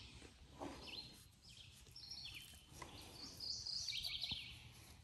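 Songbirds singing in the background: phrases of quick, high, repeated chirps, loudest about three and a half to four seconds in.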